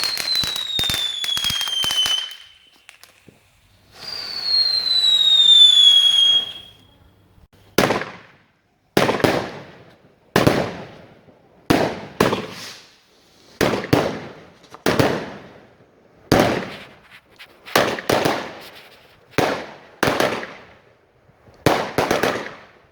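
Fireworks: two falling whistles with crackling, then a steady series of a dozen or so loud bangs, about one every second, each trailing off in an echo.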